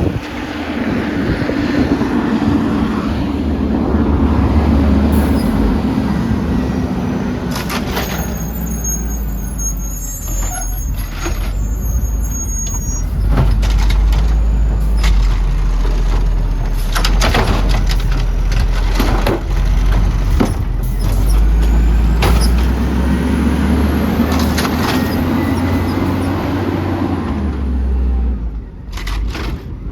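Garbage truck engine running with a deep steady drone that swells in two long stretches. Through the middle a series of sharp metallic clanks and knocks sounds over it.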